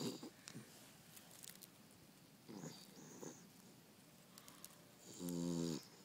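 Overweight beagle snoring in her sleep: three snores a couple of seconds apart, the last, about five seconds in, louder and with a steady pitch.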